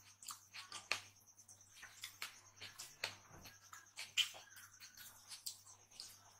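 Fingers mixing cooked rice and mooli ki bhujiya on a plate: soft, irregular squishing and clicking, several small sounds a second, over a faint steady hum and a thin high whine.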